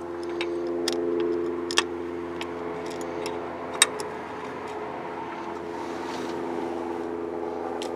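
A steady mechanical hum in the background, with light metallic ticks and two sharp clicks about two seconds apart in the first half, from a screwdriver working the jets of an open two-barrel carburettor.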